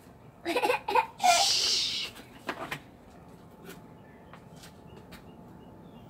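A person's short laugh in a few quick pulses, running into a breathy hiss, then two quick clicks about two and a half seconds in.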